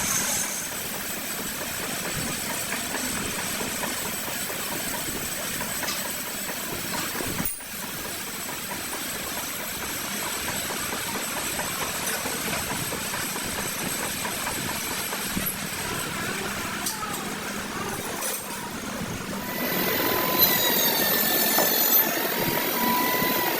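Steady mechanical running noise from a workshop machine, most likely the lathe turning the flywheel. The sound breaks briefly about a third of the way in. Near the end a steady high whine comes in.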